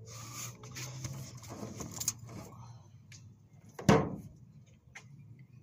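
Rustling and handling noises, then one sharp knock about four seconds in.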